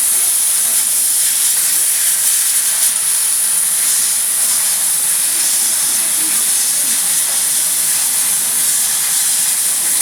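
1000 W fiber laser cutting machine cutting: a steady, loud, high hiss of the assist gas jetting from the cutting head.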